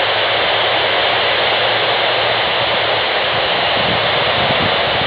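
Steady hiss of FM radio static from an amateur radio receiver tuned to the AO-91 (Fox-1B) satellite downlink while no one is transmitting through it.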